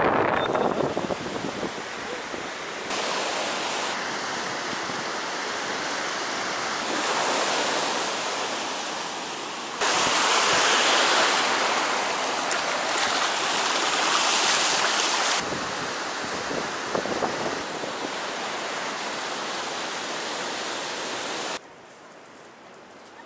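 Ocean surf rushing and wind buffeting the microphone, with sudden shifts in level at cuts between shots. Loudest in the middle stretch while a horse wades through breaking waves, and much quieter near the end.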